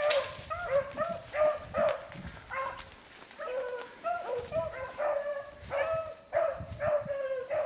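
Pack of 15-inch male beagles baying, short calls coming several times a second with voices overlapping. This is trial hounds giving tongue as they run a rabbit's scent line.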